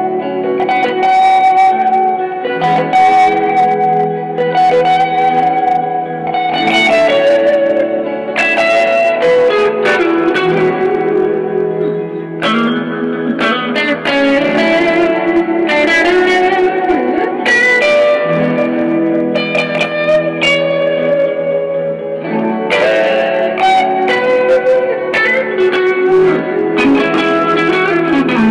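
Improvised instrumental on guitar through effects with a loop pedal: a repeating looped layer of sustained lower notes under a stream of plucked notes played over it.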